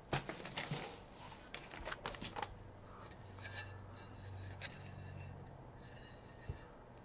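Light clicks and taps of a stainless steel canteen cup lid being handled against a metal canteen cup, several in quick succession in the first two seconds or so, then fainter and sparser. A soft thump near the end.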